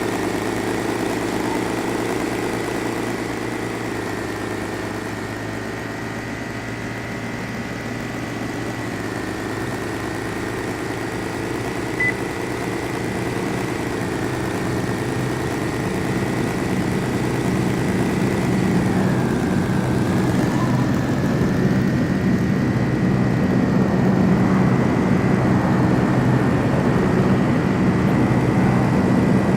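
An engine running steadily, a low drone with a thin high whine above it, growing gradually louder in the last third.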